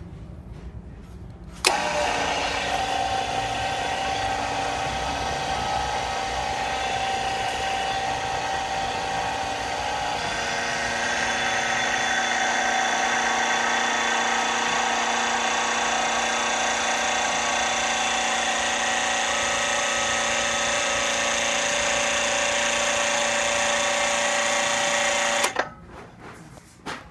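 Riken MP-8 electric hydraulic pump switched on, running steadily with a hum and whine as it builds pressure in a hydraulic cylinder. Its note shifts and grows slightly louder about ten seconds in, and it cuts off suddenly near the end.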